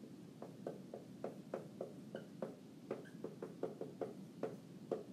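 Dry-erase marker writing on a whiteboard: a quick, irregular run of taps and scratches as each stroke and number is written, with a couple of brief squeaks of the marker tip a little past the middle.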